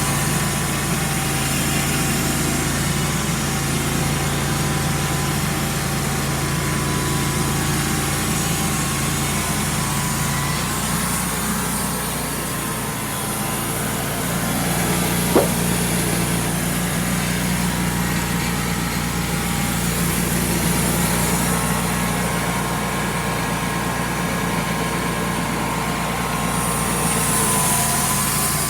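Homemade sawmill's engine running steadily while the blade cuts through a log; the engine's low note shifts about ten seconds in, and there is one sharp click about halfway through.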